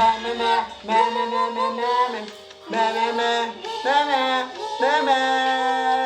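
A voice singing a melody of held notes, some of them wavering or bending in pitch.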